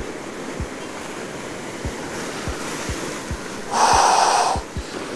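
Surf breaking against granite jetty rocks, a steady wash, with one wave surging over the rocks about four seconds in, the loudest sound, part of a big set of waves.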